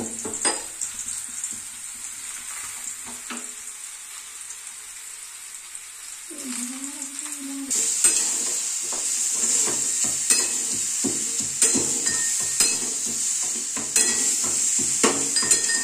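Whole dried red chilies and spices being pounded with a metal pestle in a metal mortar: sharp knocks about once a second from about halfway in, over a steady sizzling hiss. Before that, oil heating on the gas stove gives a quieter sizzle with a few clinks.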